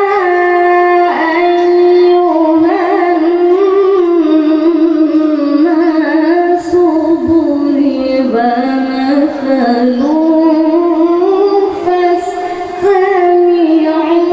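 Quran recitation in the melodic tilawah style by a young qari: a high voice holding long notes with wavering, melismatic turns. The line sinks lower in pitch around the middle, then climbs again, with short breaks for breath.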